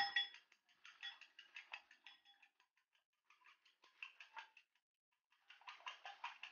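Eggs being beaten in a ceramic bowl: a utensil ticks rapidly and faintly against the bowl in three spells with short pauses between them.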